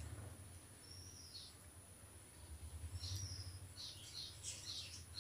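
A bird calling: short, high, falling whistled notes a couple of seconds apart, with a quick burst of chirps near the end, over a faint low hum.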